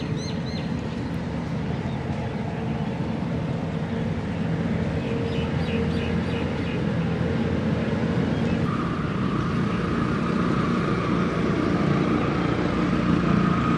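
Steady rumble of nearby road vehicles and engines, with a thin steady whine joining about two-thirds of the way through.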